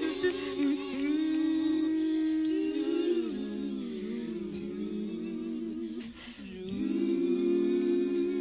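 Female gospel vocal group singing a cappella in close harmony. The sisters sustain held chords while a lead voice ad-libs above them. About six seconds in the chord breaks off briefly, then a new sustained chord comes in.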